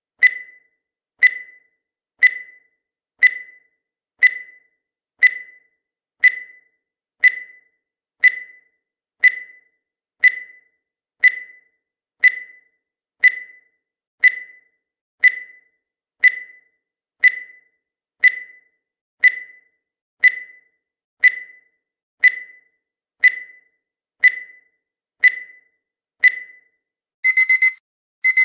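Countdown timer sound effect: a short, ringing tick once a second, 27 times. Near the end the alarm goes off as rapid electronic beeps in quick groups, marking that the time is up.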